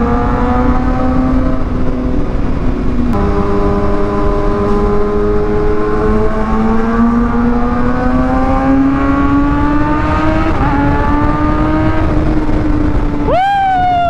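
Kawasaki ZX6R's inline-four engine through an Austin Racing GP1R aftermarket exhaust, pulling under throttle at speed, its pitch climbing slowly with a brief dip about three seconds in. Near the end the revs shoot up sharply and fall straight back. A low wind rumble on the helmet microphone sits underneath.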